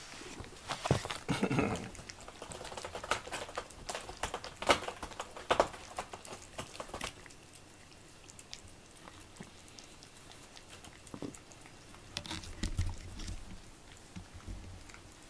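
Rubber grooming brush stroked briskly through a cat's fur, a run of quick scratchy scrapes and rustles over the first several seconds. It goes quieter after that, and near the end a cat eats from a dish with soft crunching and clicks.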